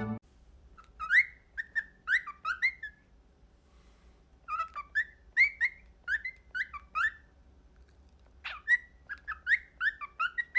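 Cockatiel chirping: short, quick whistled chirps in three runs of several calls each, separated by pauses of about a second.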